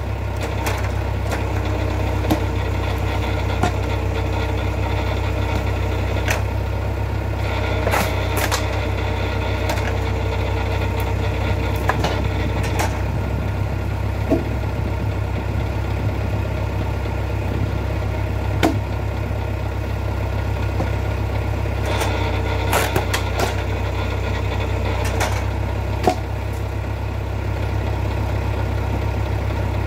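Engine driving a vertical hydraulic log splitter runs steadily throughout, with a higher hydraulic whine that comes and goes in three stretches as the ram works. Sharp knocks and cracks sound now and then as logs split and the pieces are handled.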